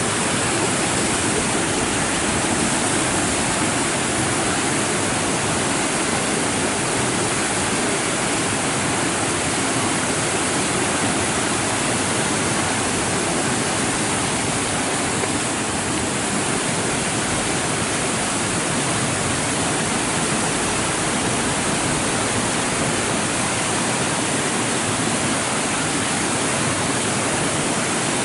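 Small waterfall of rain runoff pouring out of a cave mouth and cascading down over rocks: a steady, even rush of water.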